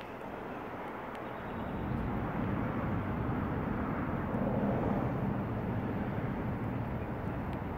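Low rumble of city traffic, swelling about two seconds in and then holding steady.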